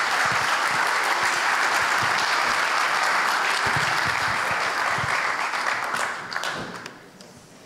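Audience applauding, the clapping steady and then dying away near the end.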